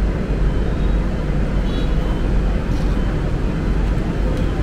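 Steady low rumble with a hiss above it from a parked Airbus A380's air systems.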